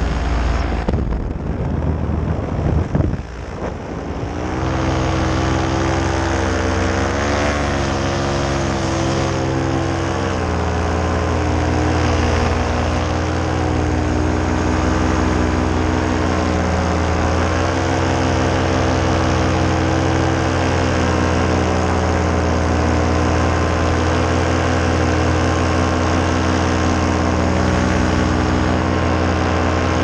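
Paramotor engine and propeller running steadily in flight, its pitch wavering slightly. The sound is unsettled for the first few seconds, with a brief dip in level around three seconds in, then holds steady.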